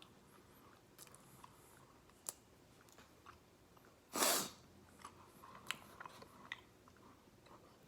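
Close-miked chewing of boneless fried chicken: soft mouth clicks and smacks scattered throughout, with one brief, much louder hiss of noise about four seconds in.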